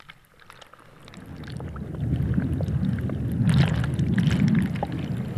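Hot tub jets churning the water, heard with the microphone at and then under the surface. A low, muffled rumble builds over the first two seconds, with many small bubbly crackles over it.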